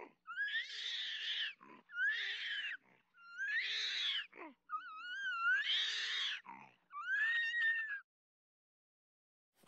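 An animal crying out five times, each cry about a second long and rising in pitch, with short breaks between; the fourth cry wavers up and down.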